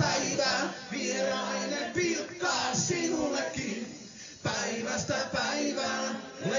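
Live rock band on stage: male singing, with several voices together, over light instrumental backing.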